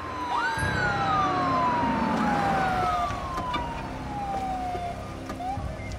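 Police car sirens wailing: long overlapping wails, each rising quickly and then falling slowly, dying away near the end.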